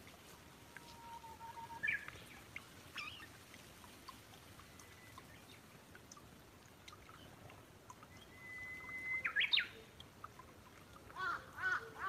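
Brown-eared bulbul calling: drawn-out whistles that break into sharp upward-sweeping squeals, twice. Near the end a fast, loud run of short arched notes, about three a second, begins.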